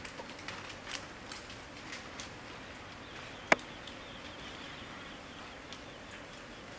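Outdoor ambience with faint insect buzzing, like a fly, starting about three seconds in and holding steady. Scattered light clicks come in the first two seconds, and a single sharp click, the loudest sound, comes about halfway through.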